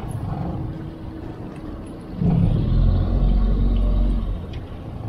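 Boat motor running with a low rumble, swelling much louder for about two seconds in the middle.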